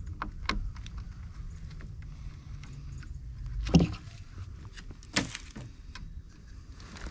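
Small clicks and knocks of a hand tool and wires being worked at a terminal block on a wooden wall, with a louder knock a little before 4 s in and another a little after 5 s, over a steady low rumble.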